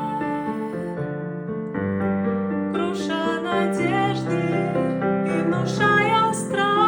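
Piano music: a slow tune of held notes and chords, with a higher melody line coming in about three seconds in.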